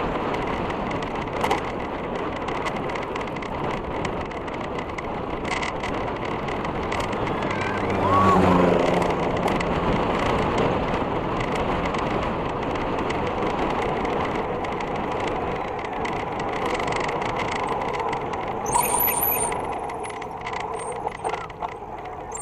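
Wind rushing over a bike-mounted camera's microphone and tyre noise on a concrete road while cycling, with scattered knocks and clicks. A louder, steady-pitched hum comes in about eight seconds in, and a brief high-pitched squeal sounds near the end as the noise eases off.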